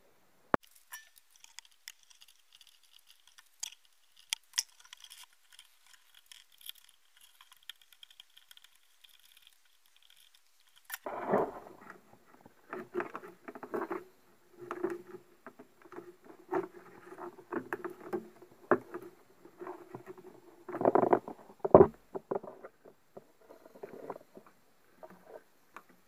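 Hands handling a CRT TV chassis board and its wires: scattered small clicks and scratching at first, then from about halfway louder, busier rubbing and scraping with a few sharper knocks.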